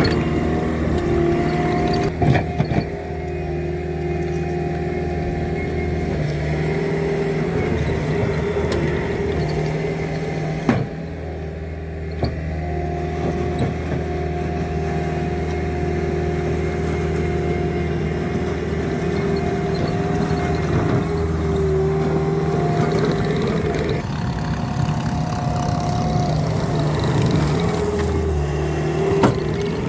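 Bobcat T66 compact track loader working, its diesel engine running steadily while it drives and grades crusher run gravel, with a whine that comes and goes. A few sharp knocks, the loudest near the end.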